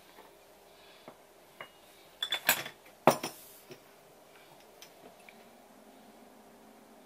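Small porcelain dish being set down on a wooden counter: a quick clatter of ceramic clinks and knocks a little past two seconds in, the loudest knock about three seconds in, then a few faint ticks.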